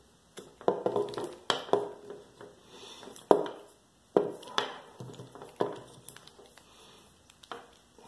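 Small wire cutters squeezed again and again on a Kryptonite steel cable bike lock, making irregular sharp clicks as the jaws bite at the coated steel cable without getting through.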